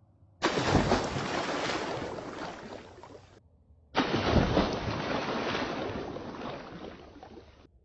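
A water splash sound effect played back slowed down, heard twice: each starts with a sudden splash and trails off as a wash of water noise over about three seconds. The second is slower and duller than the first.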